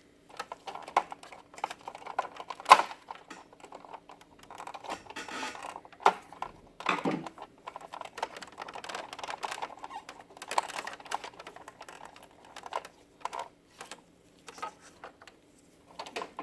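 Hands working plastic parts inside the automatic document feeder of an HP LaserJet M425 MFP printer: a run of light clicks, taps and rattles, with one sharp snap about three seconds in.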